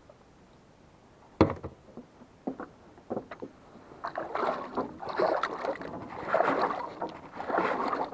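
A sharp knock, a few small clicks, then irregular splashing and sloshing from about four seconds in: a hand dipped and moved in river water.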